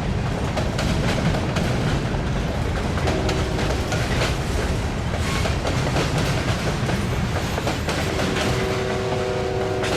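Freight train cars rolling past, their steel wheels clicking steadily over rail joints over a continuous rumble. A steady whine rises into it for a couple of seconds about three seconds in, and again near the end.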